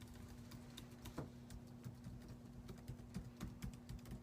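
Faint, irregular tapping on a computer keyboard, a few keystrokes a second, over a steady low hum.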